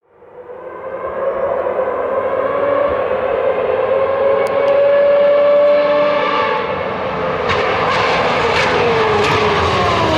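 Ferrari 412 T2 Formula 1 car's 3.0-litre V12 engine at high revs, swelling in from nothing with its pitch climbing slowly, then dropping away in the second half. A few sharp cracks come through as the pitch falls.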